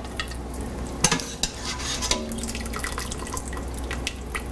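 Broth dripping and splashing back into a stainless stockpot as a wire spider strainer lifts cooked vegetables out, with a few sharp clicks of the metal strainer against the pot and plate. A steady low hum runs underneath.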